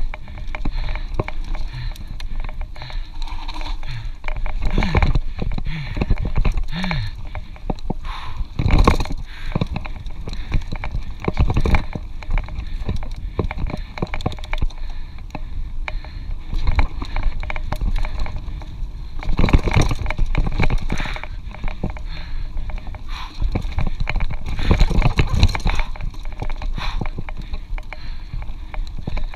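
Mountain bike ridden fast over a rough dirt trail: tyres rolling and the bike rattling, with frequent sharp knocks and clunks over bumps and roots, over a steady low rumble of vibration and wind on the microphone.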